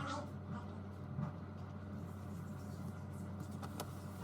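Steady low electrical hum under faint scraping and a couple of light clicks.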